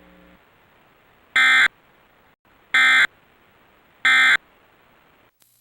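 Emergency Alert System end-of-message code: three short, buzzing bursts of digital data tones, each about a third of a second long and about 1.3 seconds apart, signalling the end of the alert.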